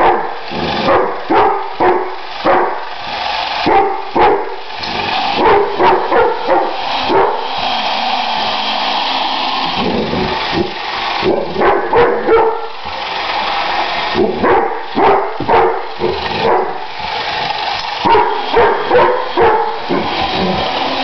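A dog barking frantically in quick runs of barks, with a few short pauses between runs: territorial barking at a postman on a motorbike.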